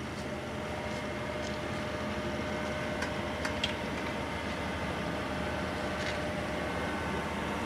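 TOS BU28 universal cylindrical grinder running idle: a steady hum with a faint, even whine and no knocking, with a few faint clicks. The seller presents the wheel head as free of noise and vibration.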